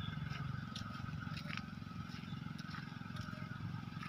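Footsteps on a dirt path littered with dry bamboo leaves, giving scattered light crackles and scrapes, over a steady low hum and a thin, steady higher tone.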